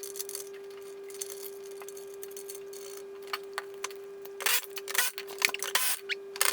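Metal hand tools clinking and tapping against metal parts, sparse at first and then a quick run of sharper clinks near the end, over a steady hum.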